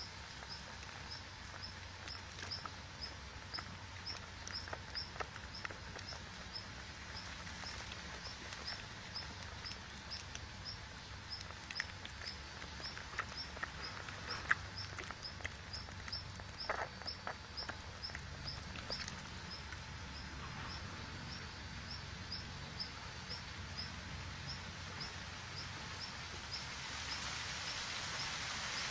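Outdoor ambience with a high, regular chirp repeating about two or three times a second, and occasional faint rustles and clicks.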